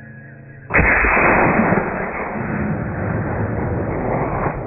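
.270 Winchester rifle shot about a second in: a sudden loud report followed by a long echo that lingers for several seconds and cuts off near the end.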